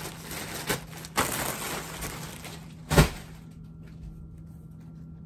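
Large plastic poly mailer bag rustling and crinkling as it is handled, with a single sharp knock about three seconds in, then quieter.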